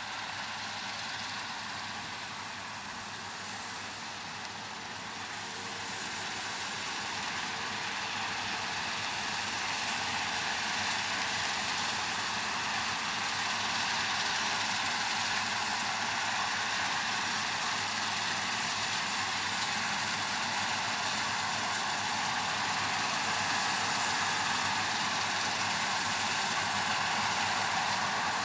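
Heavy farm machinery running steadily at harvest, with a wavering whine over the engine noise, slowly growing louder as it comes closer.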